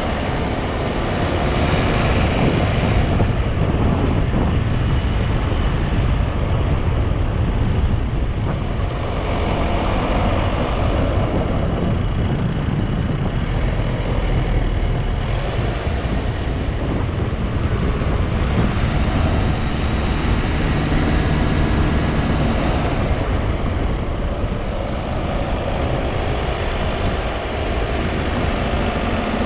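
Car driving along at road speed: steady engine and tyre noise with a rushing hiss that swells and fades every few seconds.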